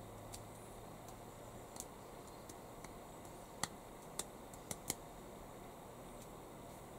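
Quiet room tone with a handful of small, sharp clicks scattered through the middle, the loudest about three and a half seconds in.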